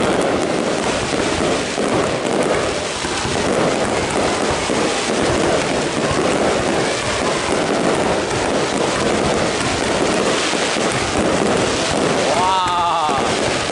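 Fireworks display: a dense, continuous crackle of bursts mixed with crowd voices, and a short wavering pitched sound near the end.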